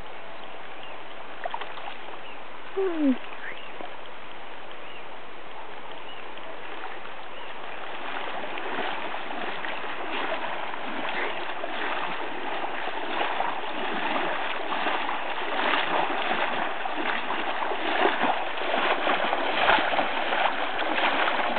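River water running, with splashing from legs wading through shallow water that grows louder and more frequent from about eight seconds in as the wader comes closer. A short call falling in pitch about three seconds in.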